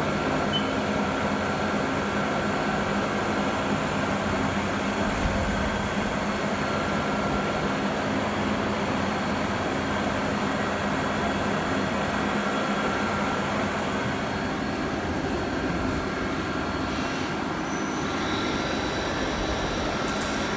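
Haas SL-40 CNC lathe running: a steady machine hum with several held tones and no strokes or pauses.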